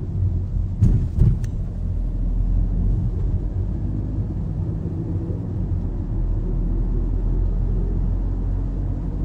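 Car driving, heard from inside the cabin: a steady low engine and road rumble, with a few sharp knocks about a second in.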